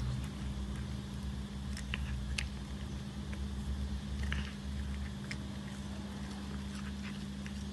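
A cat crunching a small homemade tuna-and-oat cracker, giving scattered short crisp clicks. A steady low hum runs underneath.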